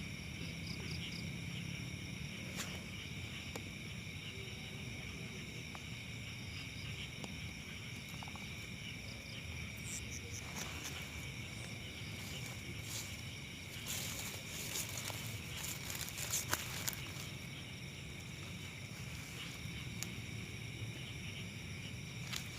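Insects, crickets among them, chirring steadily at several high pitches at once, over a low rumble, with a few short clicks and rustles partway through.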